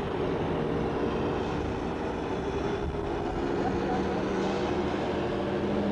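Steady running noise of a city transit vehicle heard from inside, a rumbling drone with a low hum that grows stronger about halfway through.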